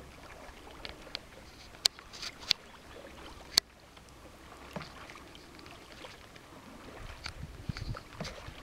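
Kayak paddling on calm water: light splashing and dripping from the paddle blades. Three sharp clicks come in the first four seconds, such as a paddle knocking on a plastic hull.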